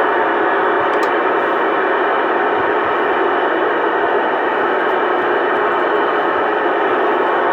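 Steady static hiss from a CB radio receiver on an open channel between transmissions, thin and band-limited like a radio speaker.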